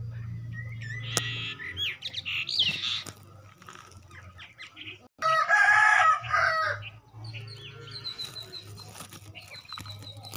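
A chicken gives one loud call of about a second and a half around the middle, with small birds chirping and whistling around it and a steady low hum underneath.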